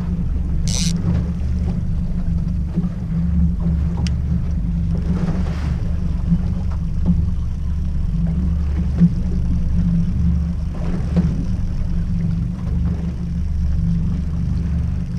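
Boat outboard motor running steadily at slow trolling speed, a constant low drone. A brief high hiss sounds about a second in.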